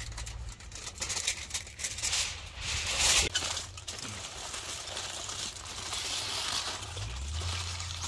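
Aluminium foil crinkling and crackling as hands fold and press it around a parcel, in irregular bursts, loudest about three seconds in.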